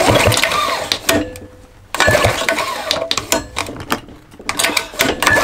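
Recoil starter of a two-stroke Tecumseh lawn-mower engine pulled three times, each pull a rattling spin of about a second as the engine turns over with its spark plug out for a spark test.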